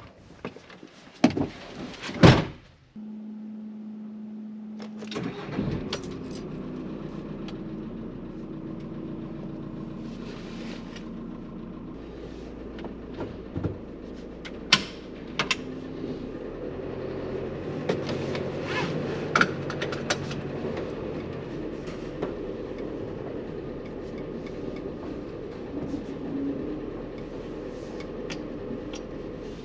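A door shuts with a couple of knocks, then the VW Crafter's diesel engine starts about five seconds in and runs steadily as the van drives off, heard from inside the cab with scattered clicks and rattles. The engine has a newly replaced timing belt.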